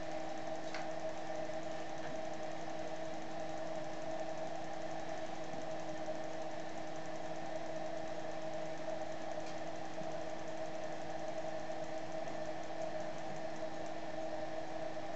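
A small electric motor humming steadily at a constant pitch.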